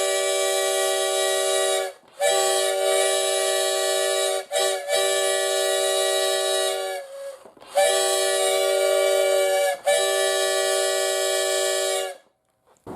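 Homemade plastic-straw five-chime train horn, styled as a steam whistle, sounding one steady chord in long blasts of about two seconds each, five in all, with one short toot between the second and third.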